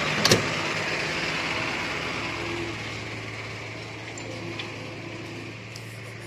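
Truck engine idling: a steady low hum under a hiss that slowly fades. A single sharp knock comes about a third of a second in.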